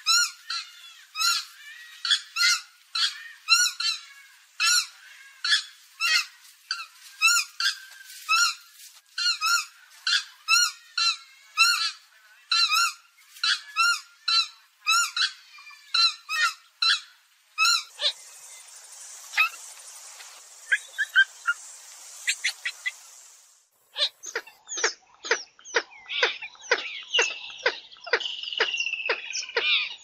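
Purple swamphen calling: a long run of sharp, honking calls repeated about twice a second. About two-thirds of the way through, the calls thin out over a background hiss and stop briefly. They then start again in another recording, a fresh series ending in a long, slightly falling note.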